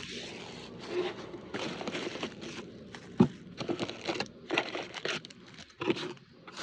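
Packaging being handled and opened by hand: irregular rustling and crinkling, with a sharp knock about three seconds in.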